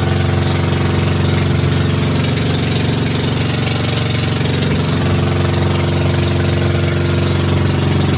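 Motorized outrigger pump-boat's engine running steadily as the boat cruises along a river, over a steady hiss.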